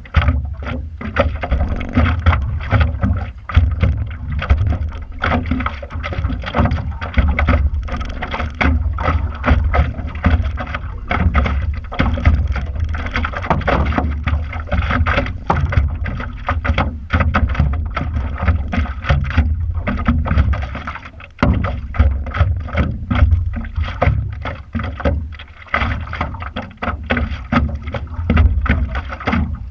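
Lake water sloshing and slapping against the nose of a stand-up paddleboard right at the camera, an uneven splashing with a steady low rumble underneath.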